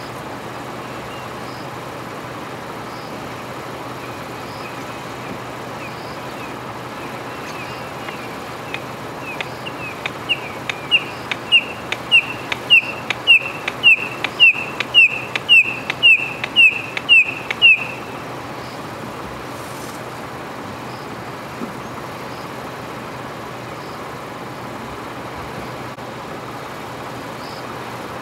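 Steady idling of a vehicle engine. In the middle a bird calls over it: a run of short, sharp notes that speeds up and grows louder for about ten seconds, then stops abruptly.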